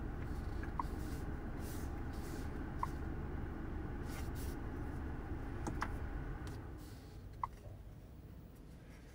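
BMW 430i's 2.0-litre four-cylinder engine running at a low, steady idle, dying away about seven seconds in. A few short, faint high ticks come every couple of seconds.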